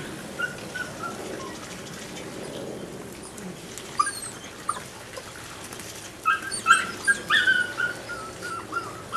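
Belgian Malinois puppy whining and yipping in short high cries, most of them bunched together a little past the middle.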